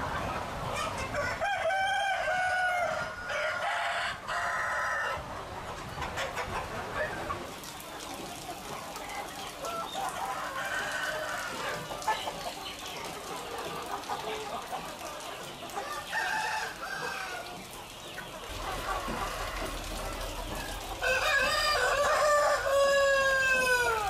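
A large flock of chickens clucking, with roosters crowing several times; the longest and loudest crow comes near the end.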